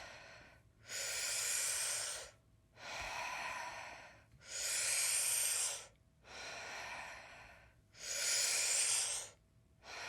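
A person doing fast-paced Wim Hof-style power breathing: deep, audible breaths in and out with no hold between them, about three full breath cycles, alternating louder and softer breaths in a steady rhythm.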